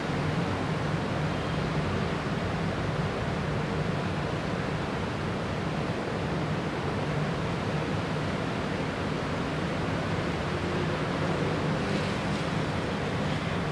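Typhoon storm outdoors: a steady, unbroken rushing noise of wind and weather with no gusts or let-up standing out.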